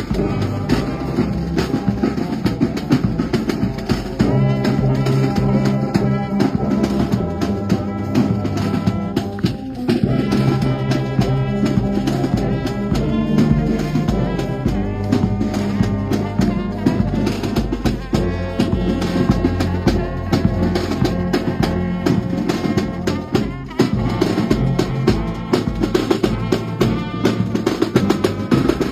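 A brass band playing a melody in held chords over a steady drum beat, the drums briefly dropping out twice.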